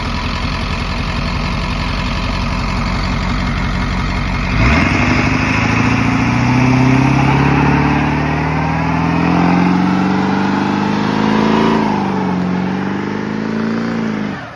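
Ford F-250's 7.3-litre Power Stroke turbo-diesel V8 running, then about four and a half seconds in it is revved hard, its note climbing and wavering as the truck spins its rear tyres in a smoky burnout. The sound cuts off abruptly at the end.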